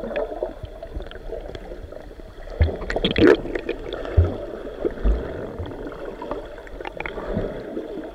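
Muffled underwater gurgling and bubbling of a swimmer moving through seawater, heard from a submerged action camera, with a few short low thumps.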